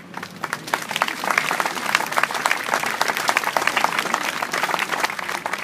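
Audience applauding: a dense round of clapping that starts at once, swells, and begins to thin out near the end.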